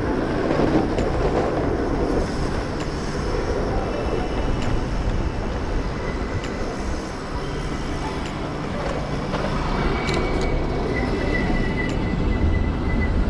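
Steady wind and road noise from riding a Stromer ST3 speed pedelec along a city street, with a low rumble throughout. A steady high whine comes in for the last few seconds.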